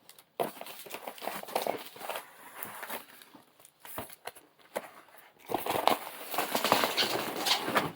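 Packaging being handled: cardboard box and plastic wrapping crinkling and rustling with scattered small clicks and scrapes, louder over the last couple of seconds.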